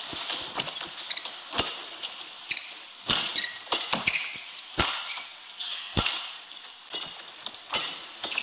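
Badminton rally: sharp racket strikes on the shuttlecock about once a second, some much louder than others, with short shoe squeaks on the court floor over a steady hall hubbub.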